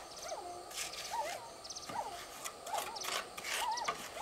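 Short, repeated bird calls, several a second, over intermittent scrapes of a trowel working wet mortar on a clay-tile roof ridge.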